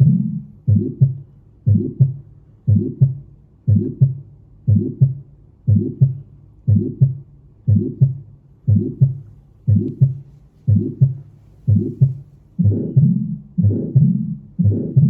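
Heart sounds from a stethoscope recording: a steady rhythm of paired 'lub-dub' beats, about one a second. The beats grow louder and fuller about twelve seconds in.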